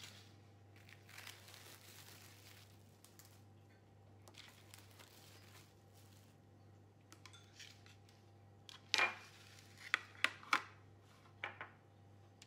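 Plastic cling film peeled off a tray of dough rolls, crinkling softly, then metal baking trays set down and knocking on the counter: a run of sharp clacks in the second half, the loudest of them close together.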